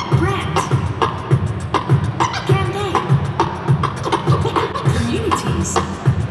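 Live human beatboxing into a handheld microphone, amplified over a PA: a steady beat of bass kicks and sharp snare clicks, with hummed tones that bend in pitch.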